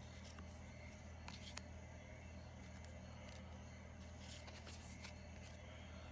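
Faint rustling and sliding of Pokémon trading cards handled off a stack by hand, with a few light scrapes and one sharp click about a second and a half in, over a steady low hum.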